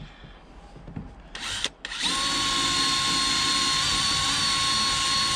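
DeWalt cordless drill spinning a wire brush against a battery cable's terminal clamp, cleaning it to a shine. A brief burst, then about a second later a steady run of about three and a half seconds with a constant whine.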